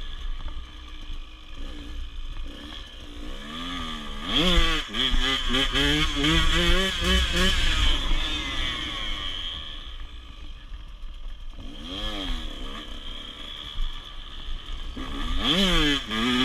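Dirt bike engine being ridden, revving up hard about four seconds in with a run of short throttle blips, easing off, then climbing again twice near the end. Wind rumbles on the bike-mounted microphone throughout.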